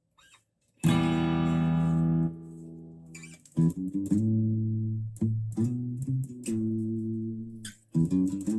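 First Act electric guitar played through an amplifier: a chord struck about a second in, rung out briefly and cut off, then a run of single picked notes.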